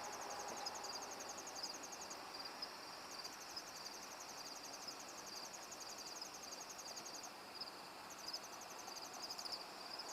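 Insects chirping in rapid, high-pitched pulsed trills that stop and start, over a faint steady hiss.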